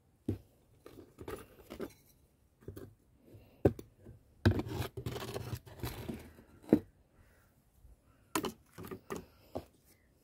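Handling noises from a small potted plant's pot: scattered knocks and clicks with scraping and rustling as it is lifted out of a plastic tray and set down and shifted on a wooden table. The loudest knocks come a little under four seconds in, at about four and a half, and at about six and a half seconds.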